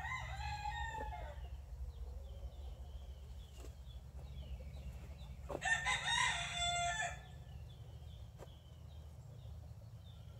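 A rooster crowing in the background, twice: a call at the start and a louder, longer one about five and a half seconds in.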